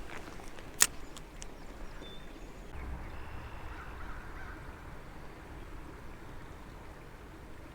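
Outdoor ambience: a low rumble with one sharp click about a second in, followed by a few faint ticks.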